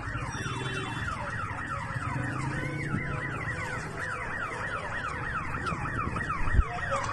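Electronic alarm sounding in rapid, repeated falling sweeps, about four a second, over a steady low rumble, with a sharp thump near the end.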